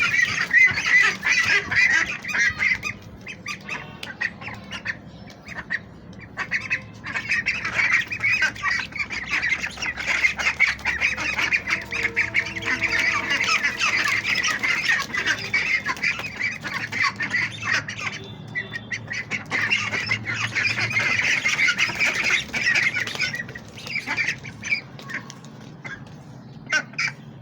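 A flock of domestic ducks calling together, many overlapping quacks and squawks in a dense, continuous chatter that eases off for a few seconds early on and again near the end.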